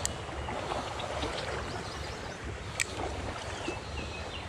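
Shallow creek water running steadily, with two sharp clicks from the spinning reel being handled; the louder click comes about three seconds in.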